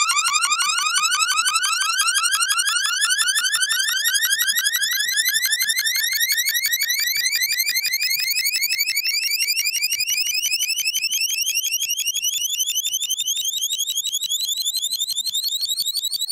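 Synthesized magic-wand sound effect: a rapid, electronic-sounding trill of short repeated chirps whose pitch climbs slowly and steadily throughout.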